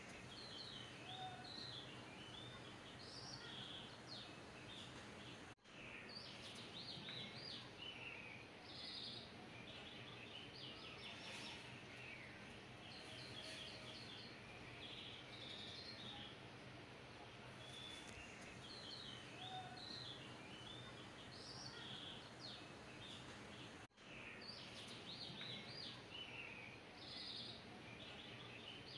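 Faint bird chirps and trills over a steady low background hum. The sound cuts out for a split second twice and seems to repeat in a loop.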